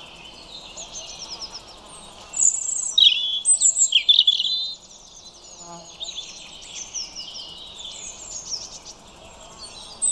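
European robins singing: high, rapid warbling and trilling phrases, with one much louder stretch of song from about two to five seconds in.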